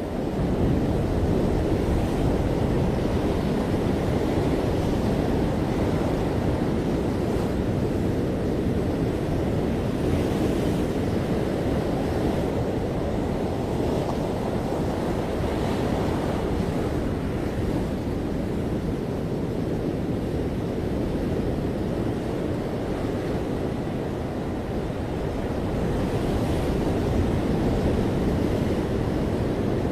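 Ocean surf breaking on a beach: a continuous deep wash of waves that swells and eases slowly, with wind on the microphone.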